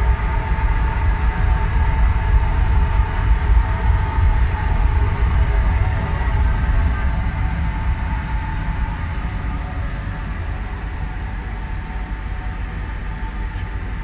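Steady industrial machinery noise: a low rumble with a few steady tones above it, easing slightly after about six seconds.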